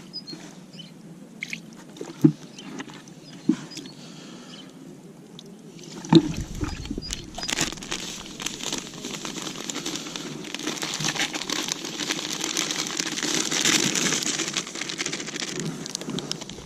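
Hands mixing crumbly fishing groundbait with water in a container: a few knocks and rustles at first, then from about six seconds in a steady crunching and rustling of the damp mix that grows louder.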